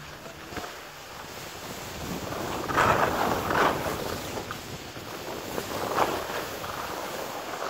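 Skis scraping over packed snow on a groomed piste, with wind rushing over the microphone; the scrape swells loudest about three seconds in and again near six seconds, as the skier carves through turns.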